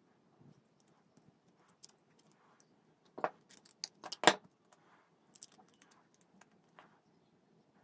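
Small metal pliers and fingers handling a foil-wrapped vape part: light foil crinkling and scattered ticks, with two sharp clicks, the loudest about three and four seconds in.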